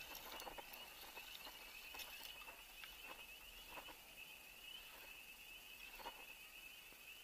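Faint, steady, high-pitched chorus of distant calling animals, with a few soft knocks about once every two or three seconds.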